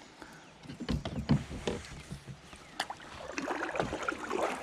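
Canoe-side handling noise: scattered light knocks and clicks in the first three seconds, then a busier rustling and water-like wash near the end.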